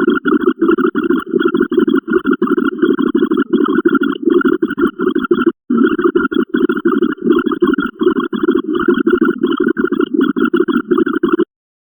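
A looped sound effect repeating in quick, rough pulses, about three to four a second. It cuts to dead silence for a split second about five and a half seconds in, and again near the end.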